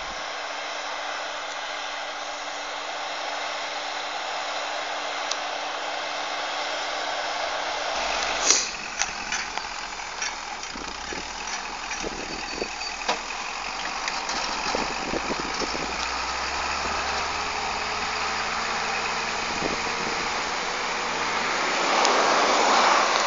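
Tractor engine running steadily under load as it pulls a seed drill across a field, getting louder near the end. A few sharp knocks and clicks are heard, the loudest about eight seconds in.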